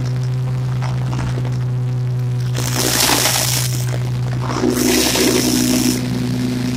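Riding lawn mower engine running steadily with a low hum. Twice, about three and five seconds in, a loud crackling rush rises over it as the mower runs through dry leaves.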